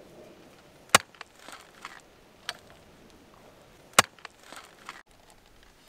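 Clamshell post hole digger driven into stony soil: two sharp strikes about three seconds apart, each followed by a short scrape of earth and grit as the blades work the dirt loose.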